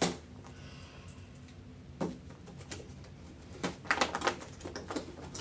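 Scissors snipping through a toy box's cardboard and plastic packaging: a sharp snip right at the start, another about two seconds in, then a run of crackling clicks near the end as the plastic is worked open.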